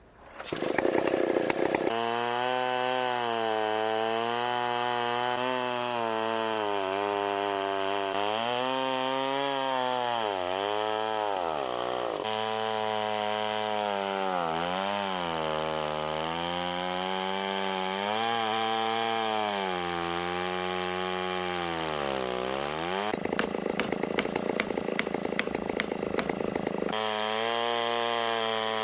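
Stihl 090 two-stroke chainsaw on an Alaskan chainsaw mill, ripping a 3-inch slab from a walnut log. The engine comes in loud about half a second in and runs under load, its pitch wavering and dipping several times as it bogs in the cut. A few seconds before the end there is a rougher, noisier stretch.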